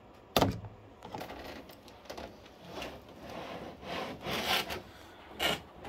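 Clear plastic packaging tray and bubble wrap being handled: a sharp plastic clack just under half a second in and another near the end, with irregular scraping, crinkling rustles in between, loudest about four seconds in.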